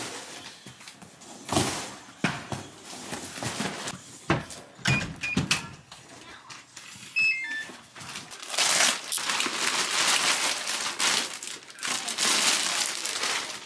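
Knocks and thumps of cardboard parcel boxes being handled, then a few short electronic beeps stepping down in pitch near the middle. After that, a long stretch of clear plastic wrapping crinkling as a boxed silicone ice cube tray is handled inside its bag.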